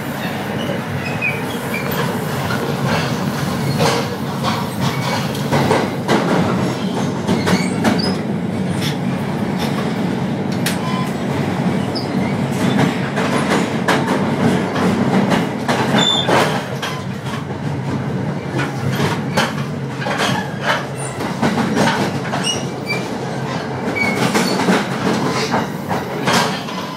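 Metro-North Hudson Line commuter train running, heard from inside the passenger car: a steady rumble with frequent sharp clicks of the wheels over the rails and a few brief high squeaks.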